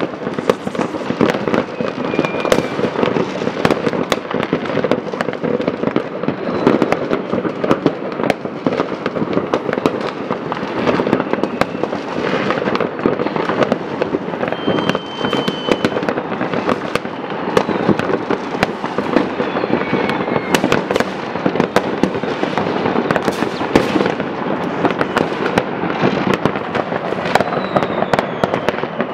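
Continuous barrage of consumer fireworks and firecrackers going off all over a town: dense crackling packed with many sharp bangs, with a few brief whistles.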